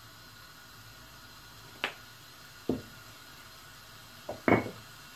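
Four short knocks and clinks of small kitchen containers being handled and set down on the counter, the loudest one about four and a half seconds in with a brief ring, over a faint steady hiss.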